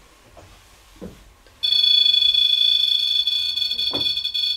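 REM-Pod paranormal detector sounding its electronic alarm, a steady high-pitched tone that cuts in about a second and a half in and holds: the pod has been set off by something disturbing the field around its antenna. Two soft knocks, one about a second in and one near the end.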